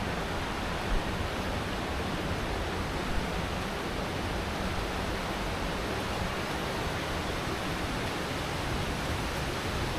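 Steady rush of falling water from a waterfall, an even hiss with no change in level, with a small knock about a second in.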